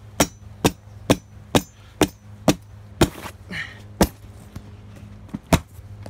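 Sword blade chopping down repeatedly on a pillow lying on a wooden block, each blow a sharp whack, about two a second. The strikes pause briefly past the middle, then two more land near the end.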